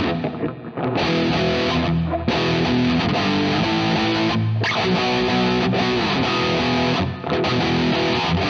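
Electric guitar, a Chibson Les Paul replica fitted with a bone nut, playing chords through distortion in phrases broken by short gaps every two to three seconds.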